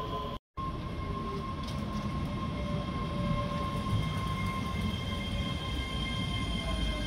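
ScotRail Class 385 electric multiple unit moving slowly along the platform: a low rumble of wheels on rail with a steady high whine from its electric traction equipment. The sound cuts out completely for a split second about half a second in.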